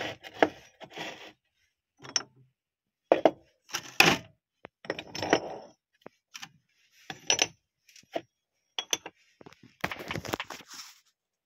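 Cast zinc ingots being handled and set down: scattered metallic clinks, knocks and short scrapes, with a sharper knock about four seconds in.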